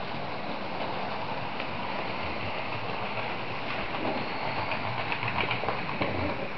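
Model train running on the layout's track: a steady whirring rattle with a few light clicks in the second half.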